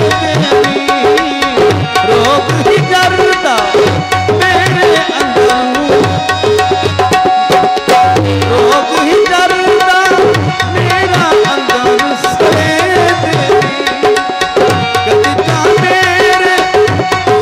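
Instrumental interlude of a live folk-song ensemble: a fast hand-drum rhythm under a wavering melodic line and a steady held drone note.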